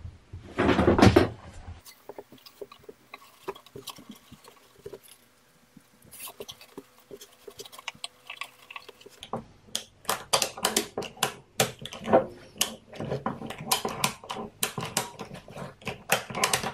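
A ratchet strap being pulled around a plywood cabinet and tightened: a loud scrape of the strap near the start, then scattered clicks, then a long run of rapid clicking and rattling from the ratchet buckle over the second half.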